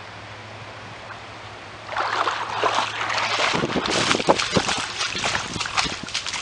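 Splashing and sloshing of someone wading through floodwater, starting about two seconds in, with irregular splashes and thuds of the steps.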